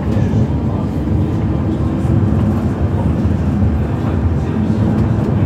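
Cabin running noise of an Alstom Citadis Dualis tram-train travelling at speed: a steady low rumble of wheels on rail and the traction equipment.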